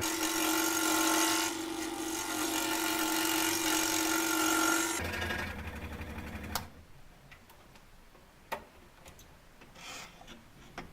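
Excalibur 21 scroll saw running, its blade reciprocating with a steady hum, then stopping about six and a half seconds in with a sharp click. A few faint clicks of handling follow.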